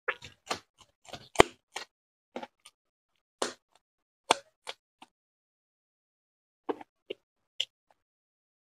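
Close-miked eating sounds: sharp bites and chewing clicks as a raw green chili and a mouthful of fried rice are eaten by hand. They come in short clusters with pauses between, the loudest crunch a little under a second and a half in.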